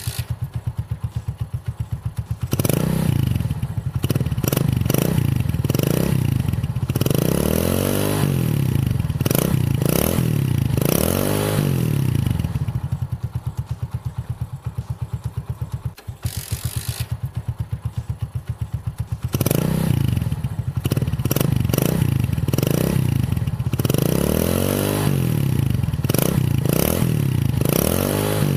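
Hero Honda Splendor's single-cylinder four-stroke engine idling, then revved in a series of quick throttle blips that rise and fall back. It settles to idle midway and is blipped repeatedly again toward the end.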